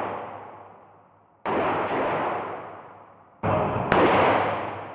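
Tokarev pistol firing at an indoor range: a shot about a second and a half in, then a quick pair of shots near the end. Each shot rings on in a long, decaying echo off the range walls.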